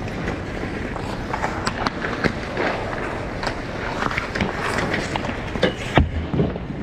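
Ice skate blades scraping and cutting across rink ice, with scattered clicks and knocks and one sharper knock about six seconds in.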